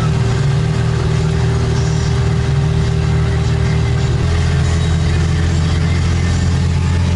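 A car's engine running while it drives, a steady low drone. Its note changes abruptly about four seconds in.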